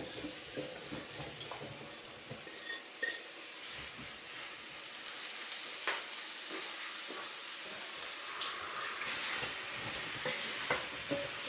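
Sliced champignon mushrooms sizzling in a hot frying pan, with scattered clicks as the pieces settle. In the last couple of seconds a wooden spatula stirs them, adding more clicks and scraping against the pan.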